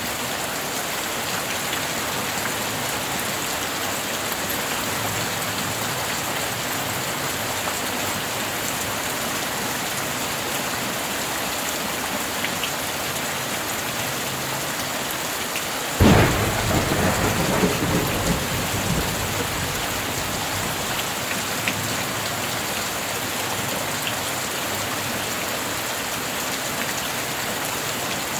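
Steady rain, with a sudden sharp thunderclap a little past halfway that rumbles away over a few seconds.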